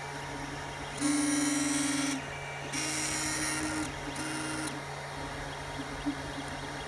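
3D printer running with its odd noise: a steady low fan hum throughout, with the motors buzzing and whining in short moves of about a second each. The loudest move comes about a second in. The noise is one the owner sets out to cure by tightening the fan housing and a side fan that felt a little loose.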